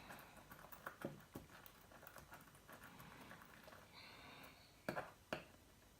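Faint clicks and taps of a metal bracelet's links being handled: a few light ticks about a second in, then two sharper clicks near the end.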